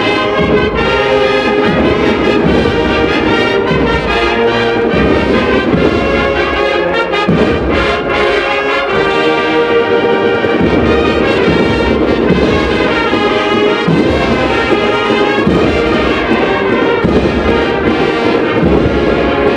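An agrupación musical, a Spanish Holy Week marching band of brass and percussion, playing a processional march. Full brass chords carry throughout, with booming drum beats underneath.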